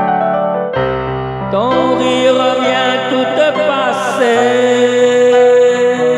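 Electric keyboard playing chords under a man's amplified singing voice. The voice slides and wavers, then holds one long note from about four seconds in.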